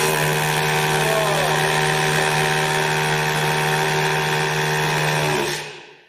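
Milwaukee M18 FHP cordless rotary hammer drilling into concrete, running at a steady pitch and winding down near the end as the trigger is let go.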